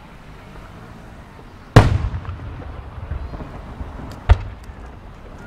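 Two aerial firework shells bursting. A loud bang about two seconds in rumbles away over about a second, and a second, shorter bang follows about two and a half seconds later.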